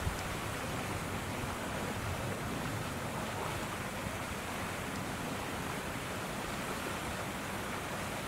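Steady rushing outdoor background noise with no distinct events, and one brief click just after the start.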